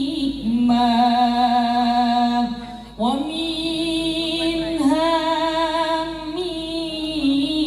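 A woman singing a sholawat, the Islamic devotional chant in praise of the Prophet, in long held notes with a wavering, ornamented pitch; there is a short break for breath about three seconds in.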